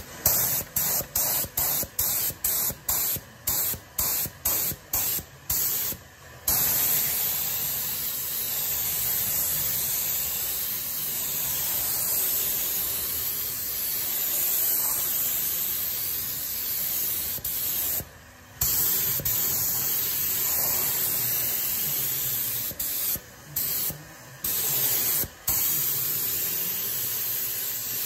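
Compressed-air paint spray gun hissing as red paint goes onto a car sill: about a dozen short blasts in the first six seconds, then long steady passes broken by a few brief stops.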